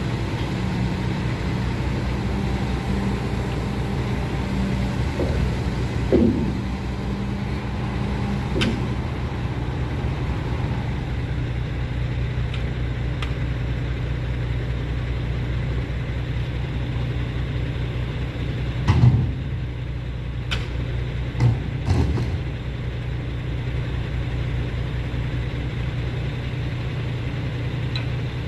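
Diesel engine of a Lovol FR220D crawler excavator running steadily, with a few short metallic knocks and clanks, a cluster of them, the loudest, about two-thirds of the way through.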